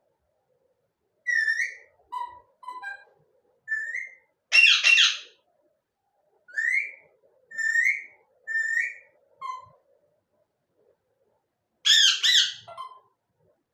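Pet parrot whistling, a string of short rising notes, broken by two louder, harsher calls about four seconds in and near the end.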